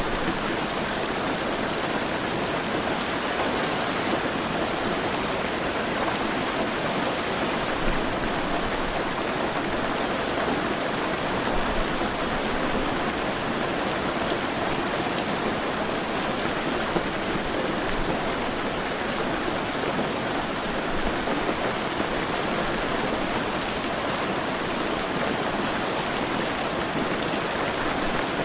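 Heavy rain falling steadily, a dense, even hiss of rain on surfaces with no breaks or swells.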